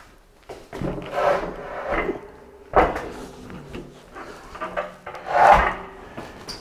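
Hands-on plumbing work: several rubbing, scraping sounds of parts and tools being handled, with a sharp knock a little under three seconds in.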